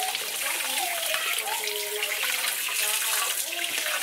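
Kitchen tap running in a thin, steady stream onto a plastic onion chopper's blade grid in the sink, splashing, while a small plastic cleaning brush scrubs at the grid.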